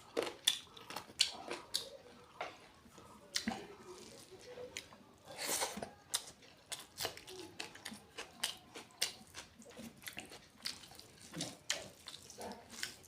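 A person chewing a curry-and-rice meal close to the microphone: many short, irregular clicks and smacks of the mouth.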